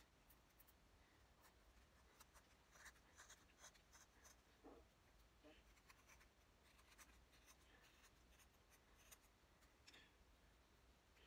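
Faint scratchy scraping and small clicks of a small hand knife whittling a wooden lure body, shaving off wood in short, irregular strokes.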